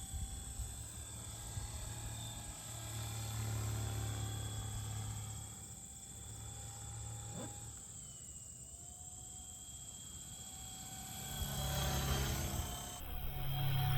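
Small electric Kyosho Hyperfly radio-controlled helicopter in flight: the motor's steady high whine over the buzzing drone of its rotor. The rotor drone swells and fades as it flies about, and the whine dips briefly in pitch about eight seconds in.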